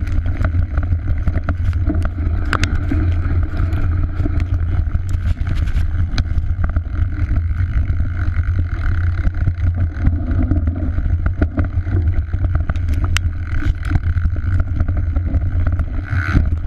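Mountain bike riding fast down a forest trail: a constant low rumble of wind and tyres on the on-board microphone, with frequent sharp rattles and knocks from the bike over rough ground.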